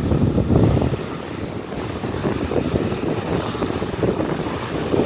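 Airbus A320 jet engines rumbling as the airliner rolls out along the runway after landing, heard from beside the airfield. The sound is a loud, rough low rumble, a little stronger in the first second and then steady.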